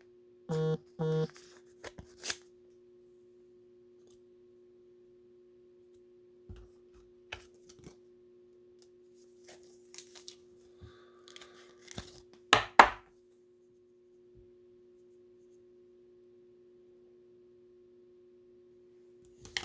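Trading-card packaging being handled, with sparse rustles and clicks and a short, loud double rip about twelve seconds in as a pack wrapper is torn open. Two short beeps sound near the start, and a steady low hum runs underneath.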